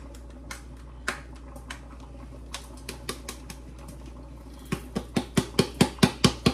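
Ground black pepper being dispensed from its container over fish: a few faint clicks, then, a little over halfway through, a run of loud, evenly spaced clicks at about five a second.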